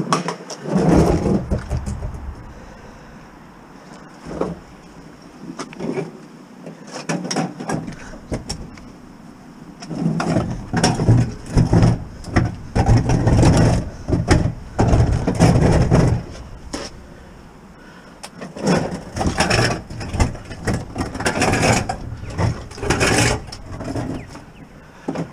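A heavy metal commercial freezer cabinet knocking, bumping and scraping as it is shoved against and into a vehicle's cargo opening. The noise comes in bouts of clustered knocks and scrapes, the longest in the middle, with short lulls between them.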